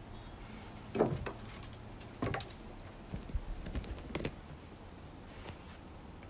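A few sharp clicks and knocks of hard plastic parts of a corded electric chainsaw being handled, irregularly spaced, with a quick cluster in the middle.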